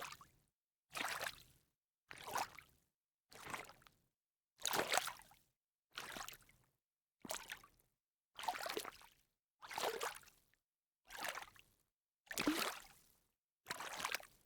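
A series of single sneaker steps in shallow water, each a short splash and slosh lasting under a second, about one every 1.2 seconds with silence between, around a dozen in all.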